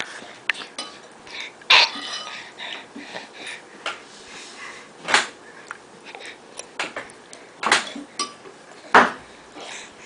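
A child's wet breath sounds: short, noisy breaths, four of them sharper and louder, a few seconds apart, with faint clicks in between.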